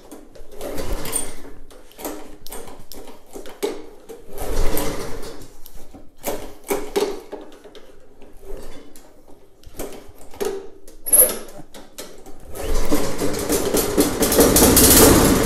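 Tecumseh VLV55 vertical-shaft lawn mower engine being pull-started on a splash of fuel primed into it. It gives several short bursts, then fires and runs for about three seconds near the end. Running on primed fuel shows the engine itself is good and points the fault to the carburetor.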